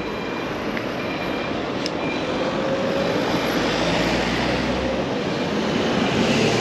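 Road traffic on a busy city street: a continuous rush of tyres and engines that grows louder as vehicles pass close by, with a low engine rumble swelling in the middle.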